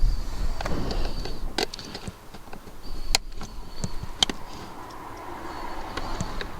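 A few sharp clicks and knocks of hands fitting plastic steering-column trim and ignition parts in a car interior, spread over the stretch, with low rumble between them.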